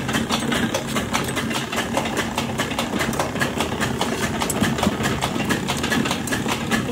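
Motor-driven AZAD oil expeller running as it presses mustard seed into oil: a steady machine hum with a rapid, regular clatter.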